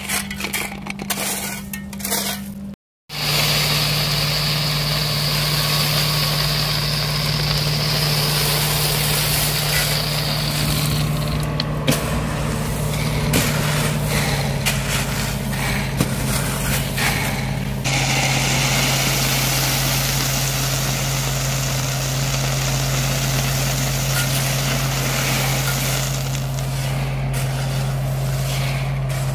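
Small engine of a tracked power wheelbarrow (motorized dumper) running steadily, its pitch dropping slightly about halfway through, with gravel scraping and rattling as stone is shovelled and poured into the trench.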